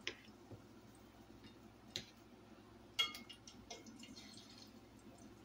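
A few light clicks of a utensil against a pot as ripe plantain slices are moved in hot oil, the sharpest about three seconds in, over a faint crackle of the frying.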